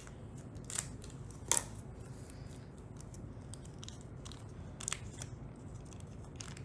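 Scissors snipping open a small candy-kit packet: a few short sharp snips, the loudest about one and a half seconds in.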